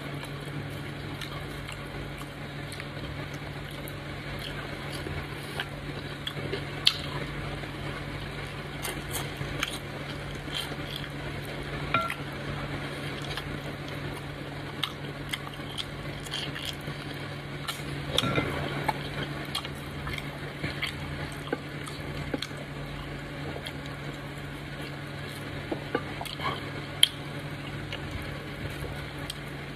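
Eating by hand: fingers squishing and pinching off soft dough swallow, dipping it in soup, with scattered small wet clicks and mouth smacks. A steady low hum runs underneath.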